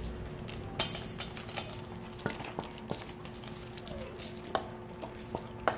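Puppies eating dry kibble together from a stainless steel bowl: irregular crunches and sharp clinks of kibble and teeth against the metal bowl, about ten in all, over a steady low hum.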